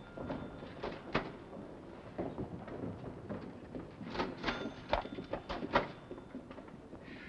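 Scattered knocks and clatter of crockery and utensils being handled at a counter: a sharp click about a second in, then a cluster of knocks between about four and six seconds in.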